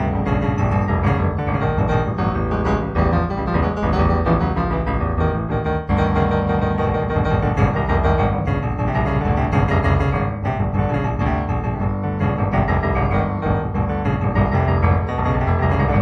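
Improvised solo piano music, many notes sounding together without a break.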